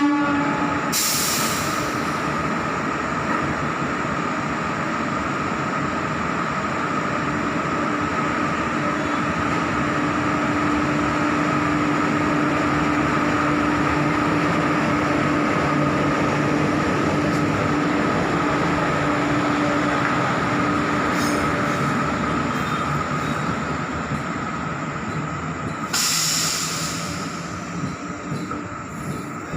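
Passenger train of ICF coaches hauled by a WAP-4 electric locomotive running past: a steady rolling rumble of wheels on rails with a faint steady whine, fading away over the last few seconds. Two brief bursts of hiss, about a second in and near the end.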